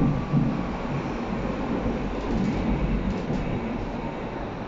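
BVG IK-series U-Bahn train running, heard from inside the passenger car: a steady low rumble.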